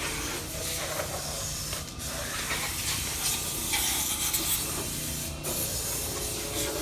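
Steady hissing noise, with a faint low hum underneath.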